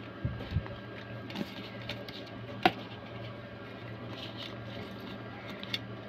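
Hands handling loose speaker wires and speakers on a tabletop: soft rustling, small clicks and taps, with a couple of dull thumps near the start and one sharper click about two and a half seconds in, over a steady low hum.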